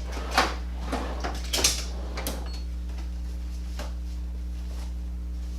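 A few light clicks and knocks in the first couple of seconds, as of small items being handled, over a steady low hum.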